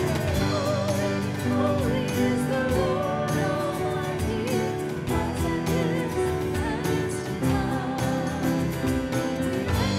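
A vocal trio, one man and two women, singing a song accompanied by grand piano and keyboard.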